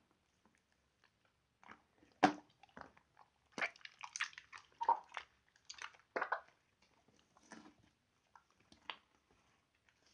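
Slime being squished and poked by hand: irregular sticky clicks and crackling pops, the sharpest a little over two seconds in and a busy run of them in the middle.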